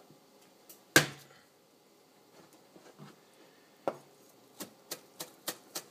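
Chinese cleaver smashing garlic cloves flat on a plastic cutting board: a loud whack about a second in and another near four seconds. Then a quick, even run of chopping strokes, about three a second, as the crushed garlic is minced.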